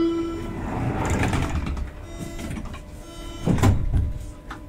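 Doors of a Berlin U-Bahn class H train closing: the steady door-warning tone stops within the first second, then the sliding doors run shut with a mechanical rushing noise. A heavy thump comes about three and a half seconds in.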